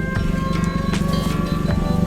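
Background music: held pitched notes over a low sustained tone, with sharp percussive strikes.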